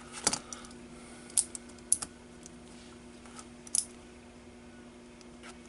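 A handful of small, sharp clicks and taps, scattered irregularly, as the RJ45/RJ11 cable tester is handled and put back together.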